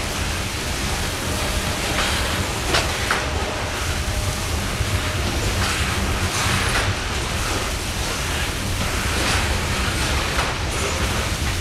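Loaded coal hopper cars of a freight train rolling past: a steady rumble and hiss of steel wheels on rail, with a few sharper clicks now and then and a low steady hum underneath.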